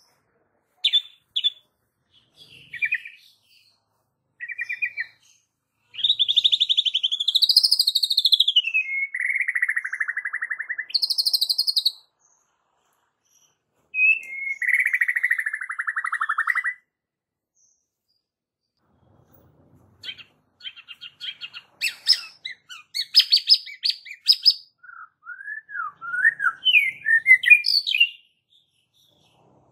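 White-rumped shama singing: a few short notes, then long phrases of loud whistles and buzzy trills that fall in pitch, a pause of a few seconds, then a fast run of short chattering notes.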